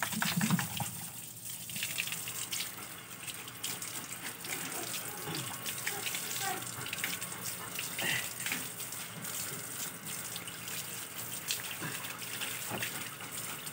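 Water from a garden hose splashing onto a wet dog's coat and the concrete floor: a steady hiss of running water broken by irregular spatters.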